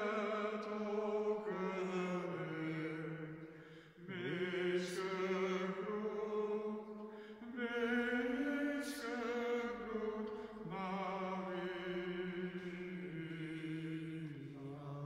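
A man singing a hymn solo and unaccompanied, in long held notes that step up and down, with short pauses for breath about four seconds in and again about halfway.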